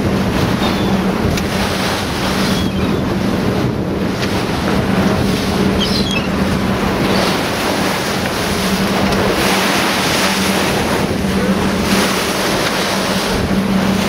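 Boat engine running steadily as a constant low hum, with wind buffeting the microphone and water rushing past the hull.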